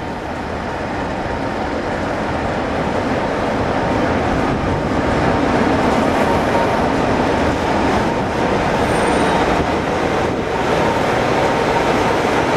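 Class 47 diesel locomotive coming slowly into the platform at the head of a train and drawing past close by. Its engine and wheel noise grow steadily louder as it nears.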